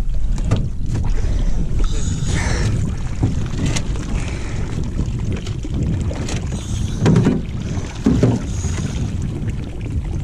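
Wind rumbling on the microphone over water splashing around the boats, with two dull knocks about a second apart about two-thirds of the way through.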